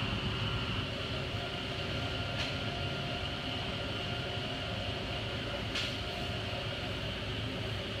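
Steady mechanical drone of a filament-winding machine turning a large fiberglass tank on its mandrel, with several steady hum tones. A brief hiss comes twice, about three and a half seconds apart.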